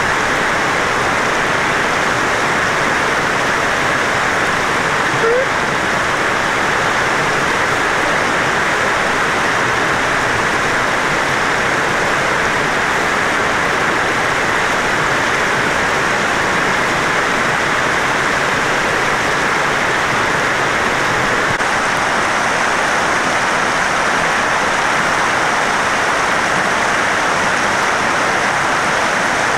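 Steady rushing of flowing water, an even hiss that does not change.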